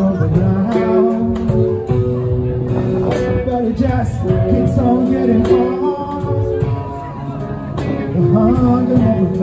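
Live rock band playing: drum kit, electric guitars and keyboard with a steady drum beat, and a man singing into the mic.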